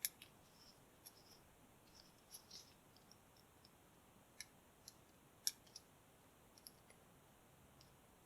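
Faint, irregular metallic clicks and ticks of a lock pick and tension wrench working the pins inside a Master Lock No. 3 padlock. There are about a dozen, spaced unevenly, and the loudest comes about five and a half seconds in.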